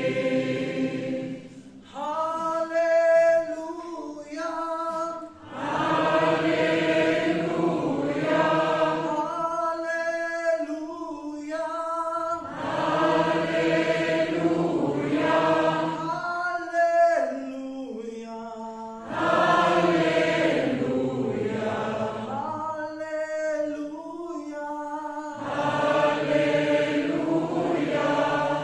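Mixed gospel choir singing in German, in long held phrases of several seconds with short breaks between them.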